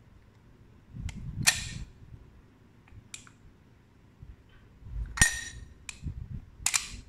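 Plastic and metal clicks and clacks of an ORIA combination key lock box being opened and shut as the shackle and front cover are pulled from the body and pushed back on. Six or so separate clacks, with the sharpest snap about five seconds in.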